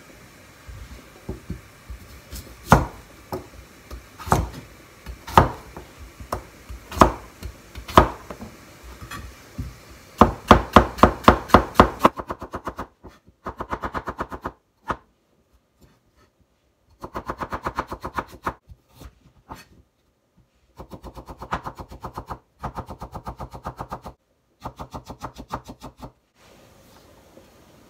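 Kitchen knife cutting turnip and daikon on a plastic cutting board. At first single cuts come about every second or so. From about ten seconds in, the cuts turn into rapid chopping runs of several strokes a second, in bursts with short pauses.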